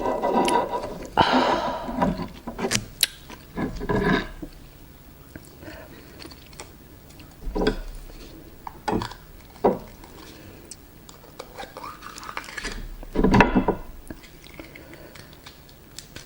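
Close-up eating sounds of raw oysters being chewed and slurped, with scattered clicks and knocks of shells and utensils against a plate. A few longer wet noisy stretches stand out, one about a second in and another near the end.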